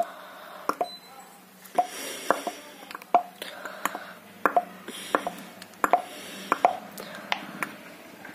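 Sharp clicks and taps, roughly two a second, some with a brief ring, from a small plastic squeeze bottle and a metal spoon knocking against a plastic tub as liquid glue is squeezed into slime mix.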